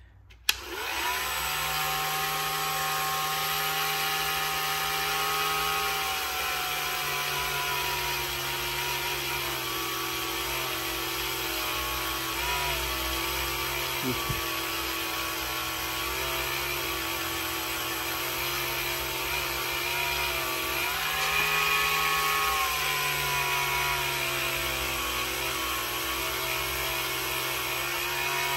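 Ryobi One+ cordless rotary tool switched on with a click about half a second in, then running steadily with a felt buffing wheel against an alloy wheel's curb rash: a whine whose pitch dips briefly twice.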